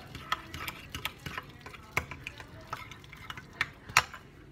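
Metal fork stirring oats into a thick banana and peanut butter batter in a glass bowl: irregular scrapes and clinks of the fork against the glass, the sharpest clink about four seconds in.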